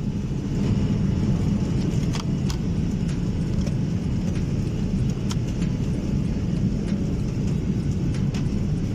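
Steady low drone of an Airbus airliner cabin in flight, engine and airflow noise. A few light clicks and knocks sound as the plastic seatback tray table is unlatched and folded down.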